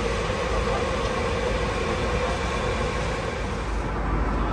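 Steady roar of engine and airflow noise inside the cabin of an Airbus A330 airliner, a deep rumble under a constant hiss.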